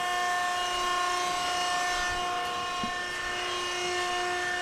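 Denver 17-ton hydra-mechanical press brake running idle, its hydraulic pump and motor giving a steady whine with several overtones. There is one small click about three seconds in.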